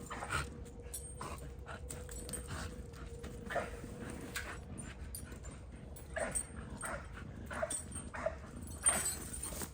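Dogs yipping and barking in short single calls, a few at first and then more often in the second half, over a faint steady hum.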